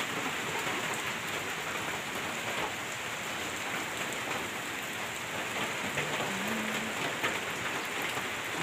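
Steady rain falling on a concrete road and flooded rice fields: an even hiss without breaks.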